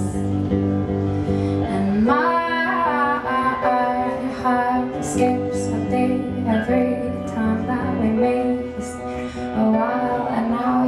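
Live pop song: a woman sings over sustained instrumental accompaniment. The voice comes in about two seconds in, after a held chord, and carries on in phrases.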